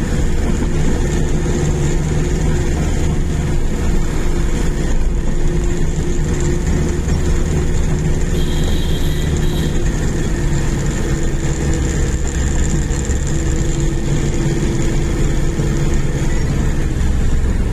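Car cabin noise while driving: a steady low drone of the engine and of tyres on the road. A brief high-pitched tone sounds about eight and a half seconds in and lasts about a second.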